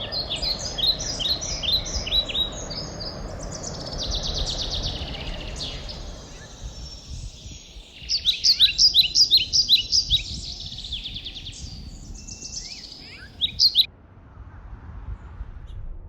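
Songbirds singing outdoors: quick repeated chirps and trills, with a loud run of about ten evenly spaced chirps in the middle and a short loud burst near the end, over a low rumble of outdoor background noise.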